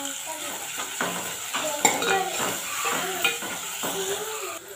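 A metal ladle scraping and clinking against a stainless steel pot, stirring sliced onions that sizzle as they fry in oil, with scrapes coming again and again.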